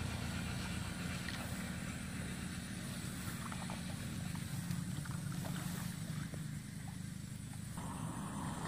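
A steady low rumble throughout, with a few faint ticks. Near the end comes soft splashing as someone wades through a shallow, muddy pond.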